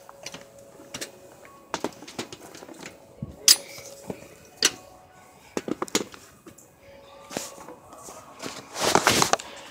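Phone handling noise: the microphone knocks and rubs against a hand and clothing, a string of sharp clicks and scuffs with a longer rustle about nine seconds in.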